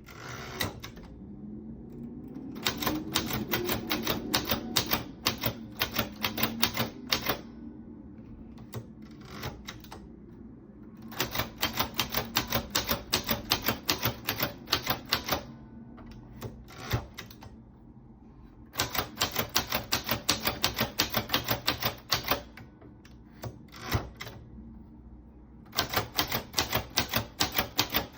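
Remington Riviera manual portable typewriter being typed on. Its keys strike in fast runs of several seconds each, four of them, separated by short pauses with a few single strikes.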